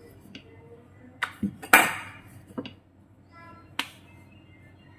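Wooden rolling pin knocking and clattering against a countertop while dough balls are rolled out into thin sheets: about six sharp knocks, the loudest about two seconds in and ringing briefly.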